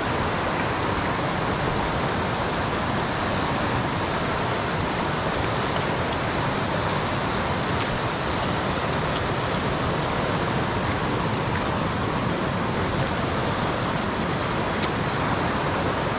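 Nantahala River running high and fast over rocks and through rapids: a steady, even rush of water.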